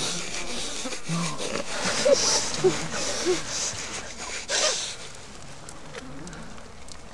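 A struggle on the ground: heavy breathing and a few short strained vocal sounds over rustling of clothing against leaf litter, dying down after about five seconds.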